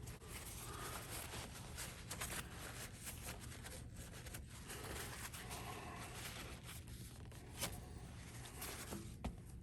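Faint handling noise from setting clamps on a freshly glued guitar headstock: rustling and scraping with scattered small clicks, and two light knocks in the second half.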